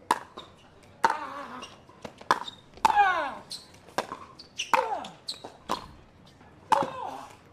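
Pickleball rally: sharp pops of the plastic ball off composite paddles and the court, about nine hits at uneven intervals, with short squeaky sounds sliding down in pitch after several of them.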